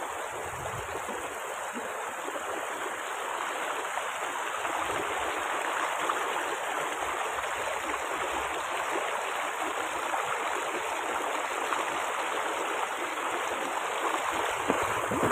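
River water rushing over rounded stones: a steady, even rush of flowing water.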